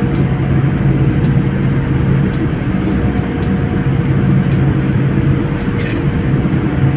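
Airliner cabin noise while taxiing: the jet engines run steadily at low power, giving a constant low rumble and a steady hum, with light irregular ticking over it.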